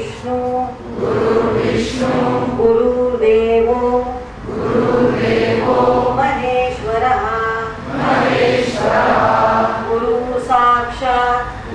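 A large group of men and women chanting in unison on a few held notes, in phrases of a few seconds with brief pauses for breath between them.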